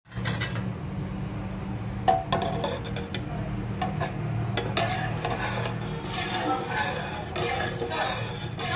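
A metal ladle stirring thick sambar dal in a metal pressure cooker pot, scraping and clinking irregularly against its sides and bottom, over a steady low hum.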